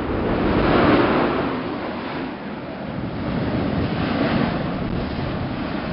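Mount Yasur volcano erupting: a rushing roar from the crater, swelling to its loudest about a second in and then running on, mixed with wind on the microphone.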